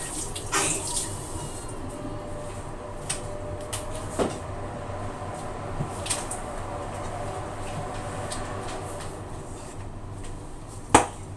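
Kitchen-sink handling of washed vegetables: scattered soft clicks and knocks as tomatoes and potatoes are moved about and set into a metal bowl, with one sharper knock near the end.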